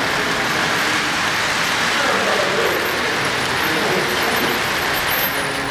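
O-gauge three-rail model freight train rolling past close by, a steady rumble and clatter of wheels on the track, with people talking in the background.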